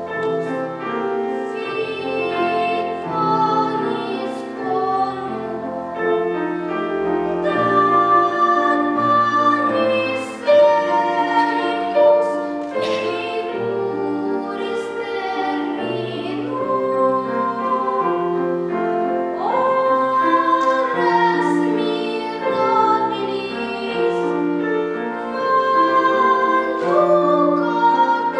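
A child singing in classical academic style, with vibrato on held notes, over piano accompaniment.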